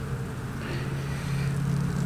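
Honey bees buzzing around an opened hive: a steady low hum that grows louder as bees come close.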